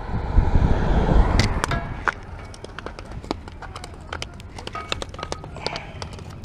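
A low rumble on the microphone for about the first second and a half, then scattered clicks, scuffs and footsteps on a gritty concrete-block bank as someone climbs down it.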